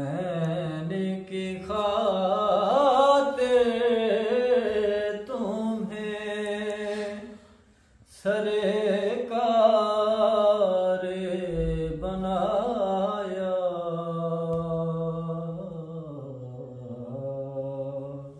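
A man sings a devotional kalam (naat) unaccompanied, in long held notes with wavering ornaments. He breaks off briefly about eight seconds in, then starts a second phrase.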